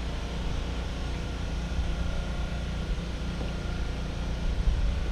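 Steady low motor drone with a faint, thin high whine over it, running without change.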